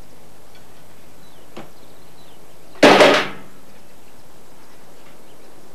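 A single loud bang about three seconds in, dying away within half a second with a short ringing tail, over faint steady room tone.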